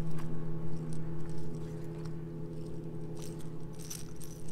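Small metal clicks and clinks of fishing pliers and a lure's hooks as a bass held on a lip-grip is unhooked, over a steady low hum.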